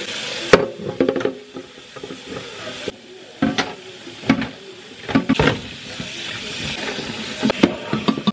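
Tap water running into a stainless steel sink while a frying pan is scrubbed with a cloth, the pan knocking and clunking against the sink many times.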